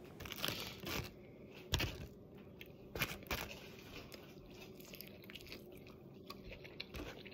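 Faint crunches and clicks of a metal fork spearing a crispy, sauced boneless chicken bite in a foil-lined container, loudest a little under two seconds in and mostly quiet over the second half.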